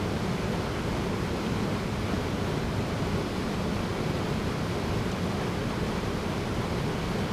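Small waterfall pouring into a rocky pool: a steady, even rushing of falling and churning water, deepest in its low rumble.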